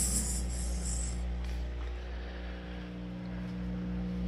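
Steady low electrical hum from running equipment, with a brief high hiss in the first second. The hum grows a little stronger near the end.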